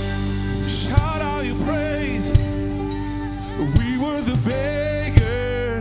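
A live worship band plays a song with a male lead vocal and backing singers over keyboard, guitars and drums. A kick drum hits about every one and a half seconds.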